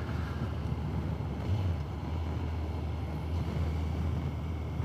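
Honda CBR1100XX Blackbird's inline-four engine running steadily under way, a low hum under wind rush, muffled by a noise-cancelling helmet-camera microphone.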